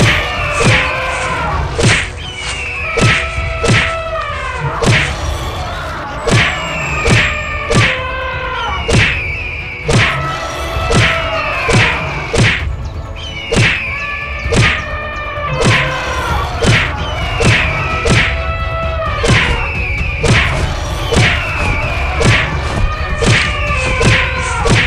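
Cartoon fight sound effects: a steady run of thwacks and thuds, about two a second, with a repeating pattern of sliding tones that fall in pitch every couple of seconds.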